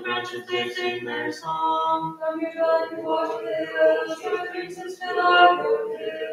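Unaccompanied Byzantine liturgical chant of Vespers: voices singing together in held notes that move in pitch every second or so, with no instruments.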